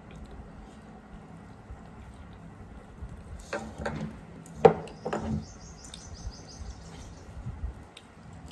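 Eating with the hands close to the microphone: a few wet lip smacks and sucking sounds about halfway through, the loudest a little past the middle, followed by a brief high chirping sound.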